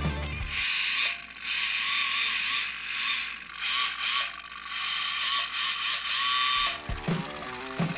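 Small electric motor in a miniature RC scale V8 engine model, its gears and moving parts whirring in several bursts of a few seconds each, switched on and off from the transmitter.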